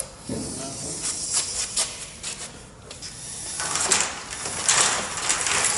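Plastic water pipe being handled and uncoiled: scattered light clicks and scrapes, then from about halfway a louder stretch of pipe scraping and rustling for about two seconds.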